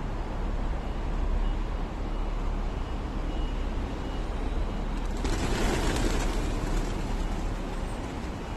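Steady low rumble of urban outdoor background noise, like traffic and wind. A little over five seconds in, a short hissing burst starts suddenly and fades over about a second and a half.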